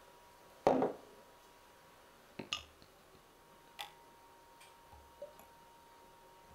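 A knock about a second in, then a few light clicks and clinks of a glass jar against a stainless steel bowl as melted coconut oil is poured into it.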